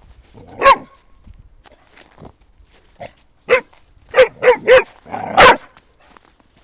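Young Shar Pei puppy barking: a single bark, then after a pause a quick run of barks, three close together and then a longer, rougher one.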